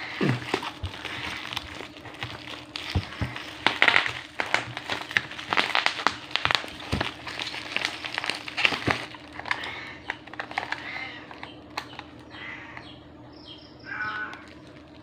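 Clear plastic packaging crinkling and rustling as a small box is unwrapped by hand, dense over the first nine seconds or so, then sparser. A brief pitched sound near the end, over a faint steady hum.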